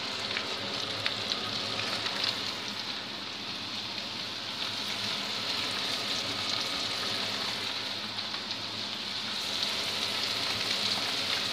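Merguez sausages sizzling in melted butter in a frying pan as they are laid in: a steady hiss with light crackles.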